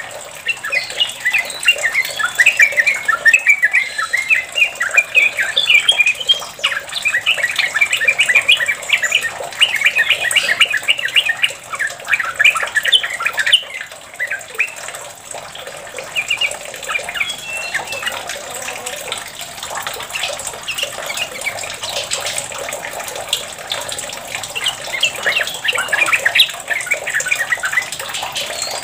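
Yellow-vented bulbul singing long, rapid runs of chattering, bubbling notes, the continuous 'ropel' song, over a steady sound of splashing water. The song thins out to a few phrases for several seconds in the middle, then comes back thickly near the end.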